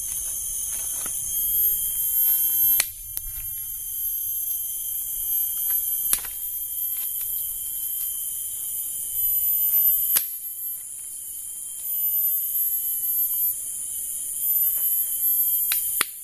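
Steady high-pitched drone of a tropical forest insect chorus, with a few sharp snaps and knocks from sticks being handled.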